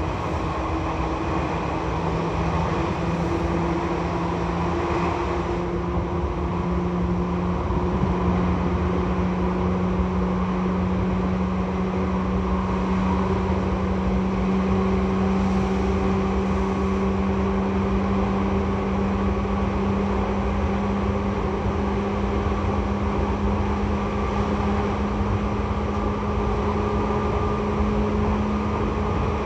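Seibu 2000 series electric train running, heard from inside the car above the line breaker: a steady wheel-and-rail rumble with a traction-motor hum that climbs slowly and evenly in pitch as the train gathers speed.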